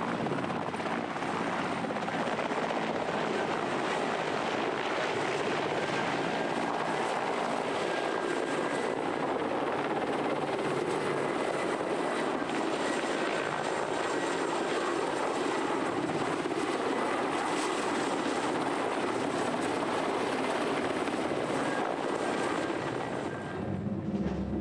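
Mi-8 helicopter hovering low, its rotor and turbine noise running steadily with a faint high whine, easing slightly near the end.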